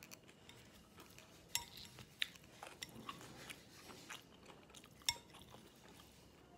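Chopsticks clicking and scraping against a ceramic plate while picking up food, with three sharp clicks standing out, over soft chewing sounds.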